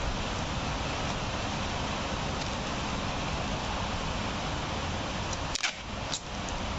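Steady crinkling rustle of black bubble-wrap plastic as a wrapped parcel is handled and pressed flat. Near the end the rustle briefly drops away and two sharp clicks sound.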